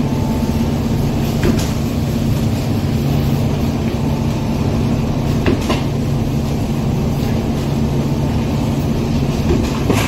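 Heavy-duty platen die-cutting and creasing machine running, its motor and flywheel giving a steady hum, with a sharp clack three times as the platen cycles shut on the board.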